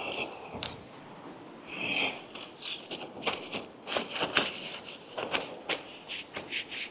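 Crinkling and rustling of a plastic tackle package being handled: a string of short crackles and clicks, thickest in the second half.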